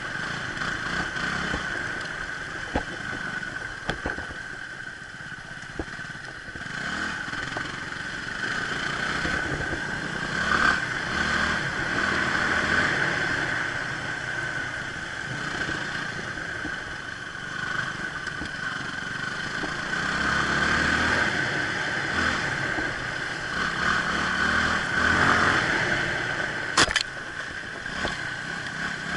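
Motorcycle running along a forest road, the engine sound rising and falling with speed. A sharp click comes near the end.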